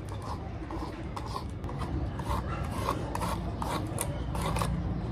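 Grooming brush rasping through a husky's thick coat in short repeated strokes, roughly two a second.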